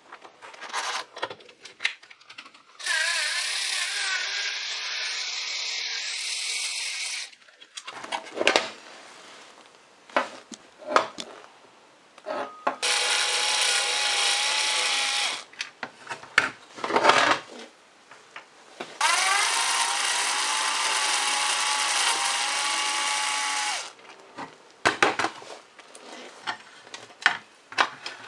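Power screwdriver running in three bursts of a few seconds each, backing screws out of a toaster's steel frame; the motor spins up with a rising whine at the start of the last burst. Between the bursts come short clicks and knocks of metal parts being handled.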